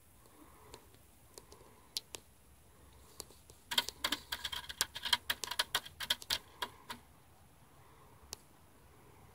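Hens' beaks pecking at a hanging plastic bucket waterer while drinking, heard as quick sharp taps. The taps come thick and fast for about three seconds in the middle, with a few single taps before and after.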